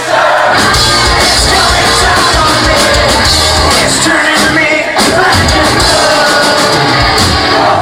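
Live metalcore band playing at full volume, with distorted guitars, heavy drums and a shouted vocal, crowd noise mixed in, heavily clipped and distorted as picked up by a handheld recorder in the club.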